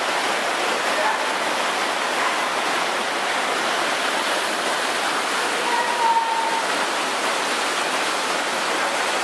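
Rushing white water of an artificial wild-water rafting channel, a steady loud hiss of churning foam. A short high tone stands out briefly about six seconds in.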